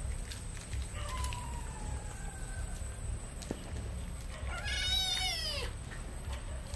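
A wet kitten meowing while being shampooed: a faint, drawn-out meow falling in pitch about a second in, then a louder meow just before the five-second mark that drops in pitch as it ends.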